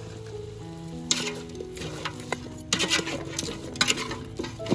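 A utensil stirring and scraping food in a cooking pan, in short clattering strokes about a second in, again around three seconds in, and near the end.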